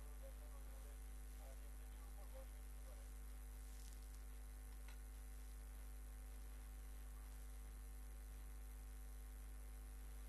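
Steady low electrical mains hum on the recording, with a faint tick about five seconds in.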